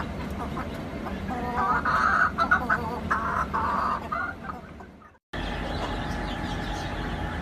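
Bantam chickens clucking, a quick run of loud clucks about two seconds in that fades out. After a sudden cut, fainter chicken calls sound over steady background noise.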